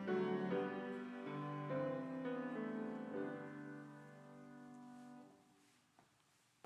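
Instrumental music of sustained, held chords moving slowly to a final chord that fades out about five seconds in, followed by a couple of faint clicks.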